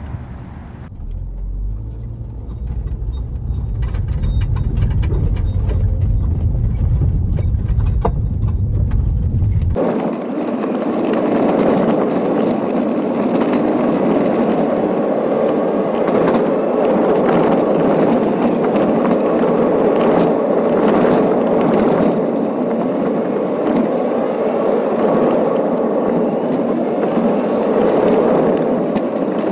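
A low rumble for about the first ten seconds. Then, after a sudden change, a car driving on a gravel road, heard from inside: steady tyre and road noise with gravel crackling and clicking under the wheels.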